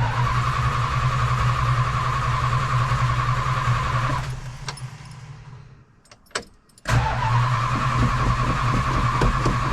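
Starter motor cranking the 1966 Plymouth Belvedere's engine in two tries of about four seconds each, the second starting about seven seconds in, with a steady starter whine. The engine never fires because the ignition coil wire is disconnected.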